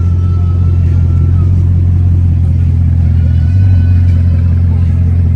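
A car engine running with a loud, steady low rumble, plus a faint thin high whine that comes and goes.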